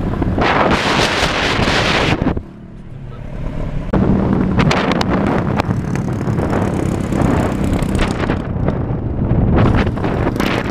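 Road noise from a moving vehicle, with wind buffeting the microphone. It drops away briefly about two seconds in, then comes back loud with a steady engine drone.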